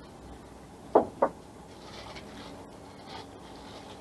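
Two short knocks about a quarter second apart, about a second in, as metal lathe tooling (a Jacob's chuck) is handled and set down, followed by faint handling rustle.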